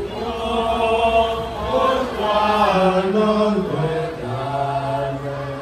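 Singing of a slow hymn in long held notes that step smoothly in pitch, the closing hymn after the dismissal of a Catholic Mass. A phrase ends just at the close.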